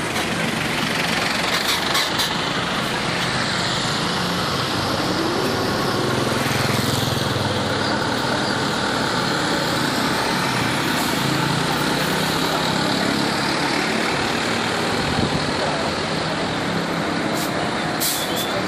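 Buses driving past on a road with their diesel engines running steadily, and people's voices in the background.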